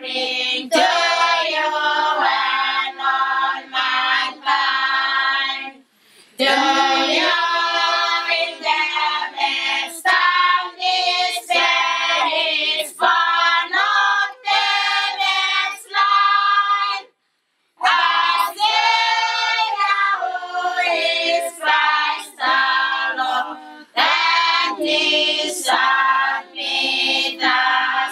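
A group of children and young women singing a Christmas carol together. The phrases break for a breath about six seconds in and again a little past seventeen seconds.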